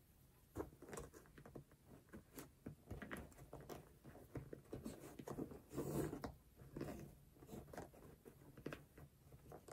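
Faint handling sounds of a flat shoelace being threaded through a sneaker's eyelets: soft clicks and rustles of the lace sliding and fingers working on the shoe, with a slightly louder rustle about six seconds in.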